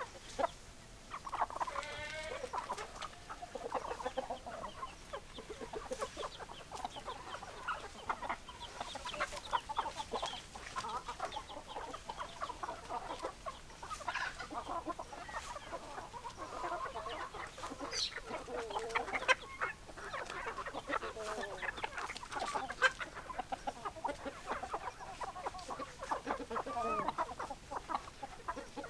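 A flock of hens clucking, with many short calls overlapping one another throughout.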